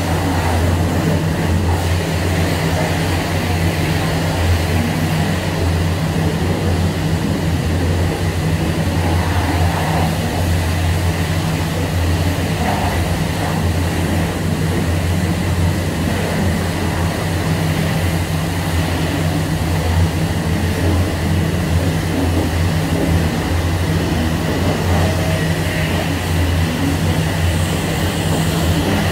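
Self-serve car-wash pressure washer running: a steady low pump hum under the even hiss of the high-pressure wand spraying water.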